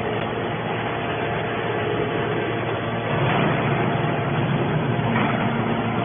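Hydraulic scrap metal baler running: a steady mechanical hum and whir with a few faint steady tones, a little louder from about three seconds in.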